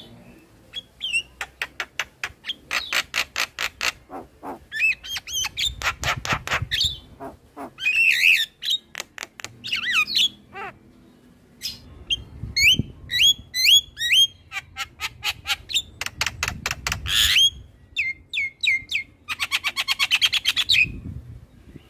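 Javan myna singing a varied song in bursts: rapid runs of dry clicks and rattles, harsh chattering, and a series of short rising whistles about two-thirds of the way through.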